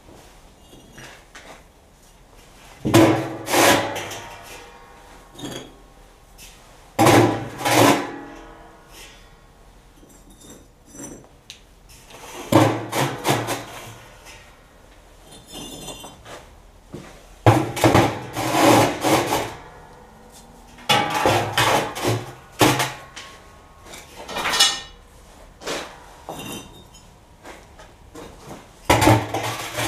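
Firebricks being set into the bottom of a steel oil barrel: several bursts of clunks and scrapes, brick against brick and against the drum. Some of the knocks leave a short ring from the steel drum.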